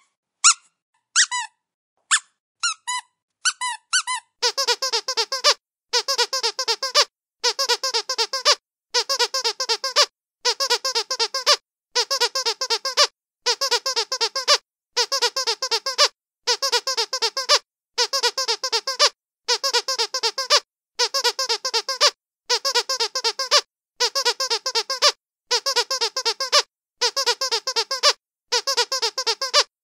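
A dog's squeaky toy squeezed over and over. There are a few separate squeaks at first. From about four seconds in come rapid runs of squeaks, each burst about a second long, with short pauses between.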